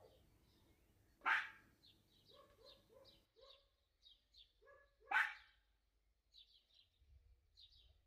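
A dog barking twice, about four seconds apart, with fainter short calls between and after the barks.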